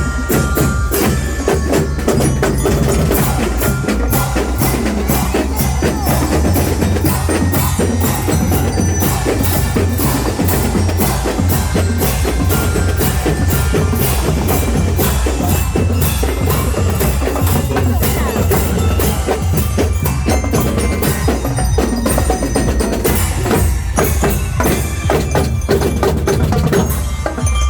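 Drum and bell-lyre band playing: a fast, steady drumbeat with bright bell-like melody notes over it.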